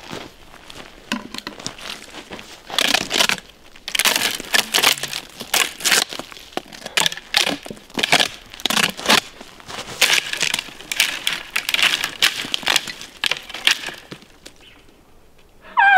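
Dry crunching and rustling, a crinkly burst roughly twice a second, fading out near the end.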